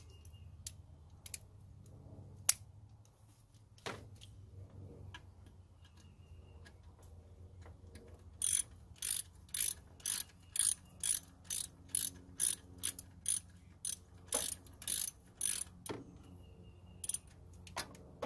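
Socket ratchet wrench clicking as it tightens the bolts on a power steering pump bracket. A few scattered clicks come first, then from about halfway in a regular run of quick strokes at about two a second.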